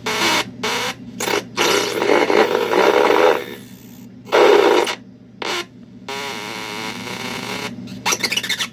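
Circuit-bent electronic sound-effects toy making glitchy bursts of harsh noise and distorted tones that cut in and out irregularly, with a wavering tone in the second half and a fast stutter near the end, over a steady low hum.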